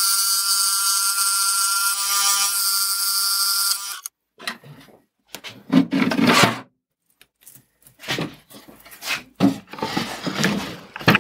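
Bandsaw cutting a small piece of plywood: a steady whine with hiss over it, which cuts off suddenly about four seconds in. After that come irregular knocks and rubbing of wooden parts being handled.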